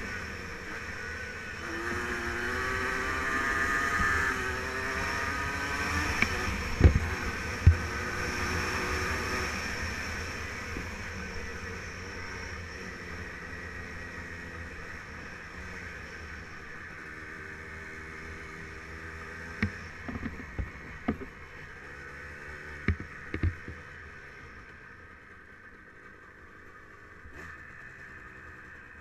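Yamaha Blaster 200's two-stroke single-cylinder engine running under way, its pitch rising and falling over the first ten seconds, then running quieter and lower. Several sharp knocks cut in: two about seven seconds in and a cluster around twenty to twenty-four seconds.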